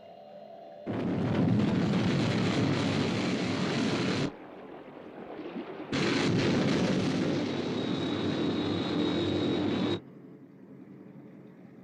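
Rocket-engine roar of the Sky One interceptor launching and climbing, in two loud stretches: from about a second in to about four seconds, then from about six to ten seconds with a thin high whine over the roar.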